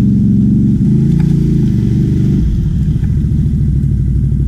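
ATV engine running loud, its note shifting with the throttle and dropping to a lower, choppier note about two and a half seconds in.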